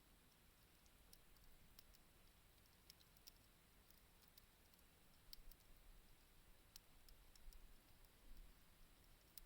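Faint wood campfire crackling: sparse, irregular sharp pops and clicks from the burning wood.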